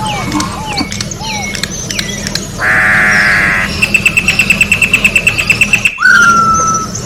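Campo troupial (corrupião) singing a varied song. It opens with short falling notes, then gives a harsh buzzy note and a fast trill of about ten notes a second. After an abrupt break it ends on a clear held whistle.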